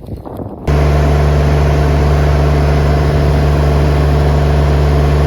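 Tractor engine running loud and close at a steady speed, cutting in abruptly less than a second in.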